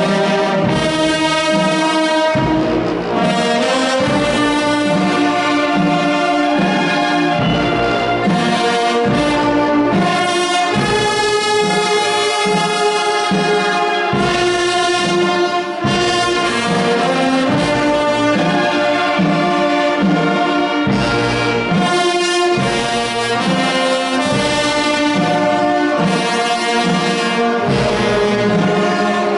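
Wind band playing: brass and woodwinds hold full chords over a steady bass line.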